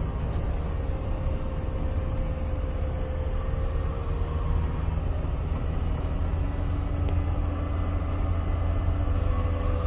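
Wheel loader's diesel engine running steadily, heard from inside the cab as a deep, even rumble with a faint whine above it.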